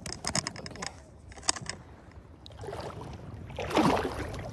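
Shallow seawater splashing and sloshing around rocks as a person wades, with a quick run of sharp clicks and knocks at the start and the loudest splash near the end.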